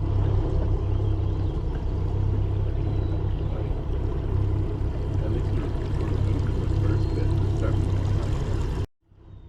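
Boat motor running steadily with water rushing past: a low drone under a wash of noise. It cuts off suddenly near the end.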